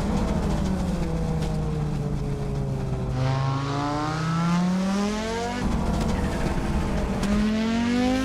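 Audi Sport quattro S1's turbocharged five-cylinder rally engine: its note falls off, then climbs under hard acceleration about three seconds in, cuts off abruptly a couple of seconds later, and climbs again near the end.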